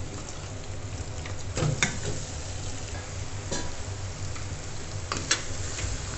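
Raw chicken pieces sizzling in hot oil and ginger-garlic paste in a nonstick kadai, a steady frying hiss. A few sharp knocks and scrapes as the chicken goes in and a wooden spatula stirs it.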